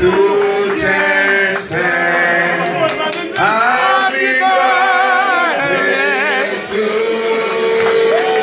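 Live Haitian compas music with a man singing, holding some long notes with vibrato.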